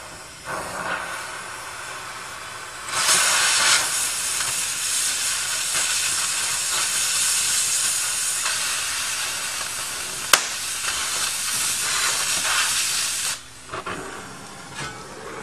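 Gas cutting torch hissing as it cuts through a steel bar. The hiss becomes much louder about three seconds in, holds steady, and drops off near the end, with a single sharp click about two-thirds of the way through.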